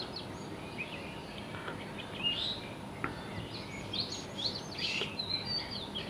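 Birds chirping: scattered short, high calls over a faint steady hiss of background ambience.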